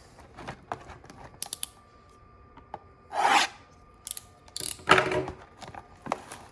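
Cardboard trading-card hobby box being handled and opened: a string of short scrapes and rubs, the loudest about three seconds in and again around five seconds.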